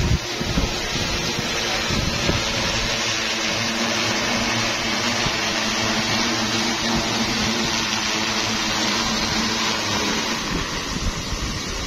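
Multirotor agricultural spraying drone's rotors running close by: a steady, loud whirring hum over a hiss of air.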